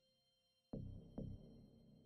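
Two deep, sudden hits in a dark music cue, about half a second apart, the second a little louder, each ringing out and fading.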